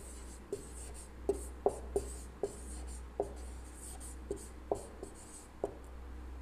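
Marker pen writing on a whiteboard: a dozen or so light, irregular taps of the tip against the board, with faint scratchy strokes between them.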